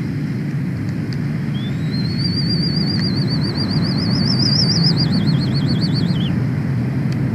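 A high, tea-kettle-like whistle rises in about one and a half seconds in, holds with a wavering pitch for about three seconds, then warbles faster and cuts off. A steady low rumble runs underneath.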